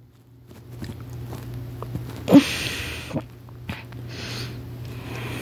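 A person breathing and sniffing close to a phone microphone, with one sharper sniff or snort about two seconds in, over a steady low hum.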